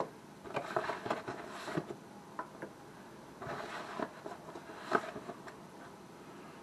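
Pierogies being dropped by hand into a pot of boiling water: several irregular splashes and plops, with a sharper one about five seconds in.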